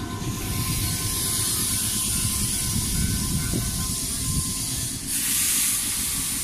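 Nankai electric commuter train running alongside the platform, with a steady low wheel-and-rail rumble and a high hiss. The hiss grows louder about five seconds in.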